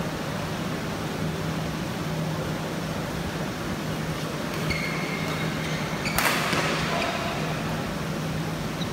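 Badminton hall room tone between rallies: a steady low hum under faint background noise, with one brief sharp noise about six seconds in.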